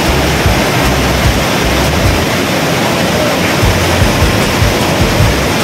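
Loud, steady rush of a waterfall, with water crashing and churning over boulders at its base.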